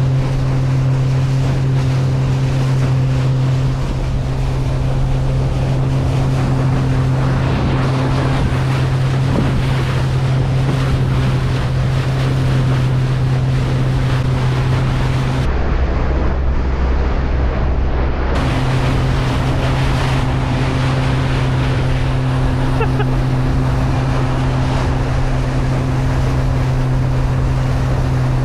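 Small Boston Whaler's outboard motor running at speed, a steady low hum over the rush of wind and water against the hull. For about three seconds past the middle the hum drops to a lower note, then comes back.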